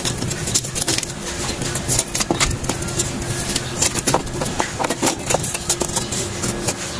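Metal clicks, knocks and scrapes of drum-brake parts being handled: new brake shoes set onto the backing plate and the brake drum slid on over them. A steady engine-like hum runs underneath.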